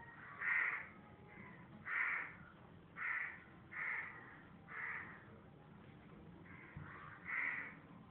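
A bird calling repeatedly, with six loud, short calls at uneven intervals of roughly one to two seconds.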